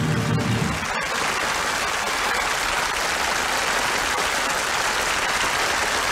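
The band's final sustained chord breaks off about a second in, followed by an audience applauding steadily.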